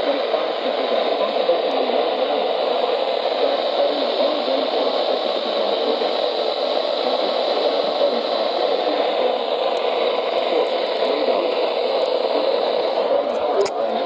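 Weather radio receiver putting out steady static hiss, with no announcer's voice on the channel.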